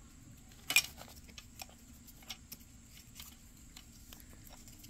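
Webbing strap being threaded through a triglide and buckle hardware by hand: scattered light clicks and rustles, with one sharper click about a second in.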